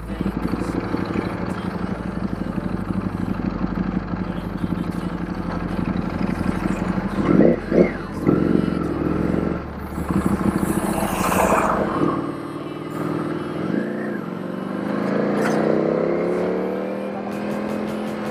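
Ducati Panigale V4 S V4 engine running while riding through traffic, heard from the rider's seat. Two brief loud sounds come about seven seconds in and a louder burst of noise around eleven seconds. The engine pitch rises near the end as the bike accelerates.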